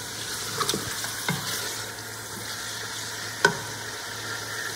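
Mutton pieces sizzling as they fry in hot oil in an aluminium pressure cooker, browning. A wooden spoon stirs them, knocking against the pot a few times, loudest about three and a half seconds in.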